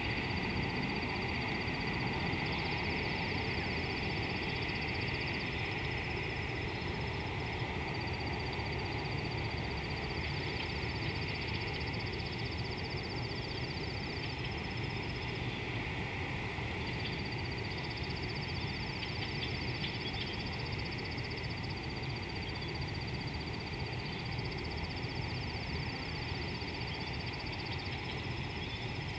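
Steady outdoor riverside ambience. High, finely pulsed trilling calls switch on and off every few seconds over a constant high chorus and a low steady rumble.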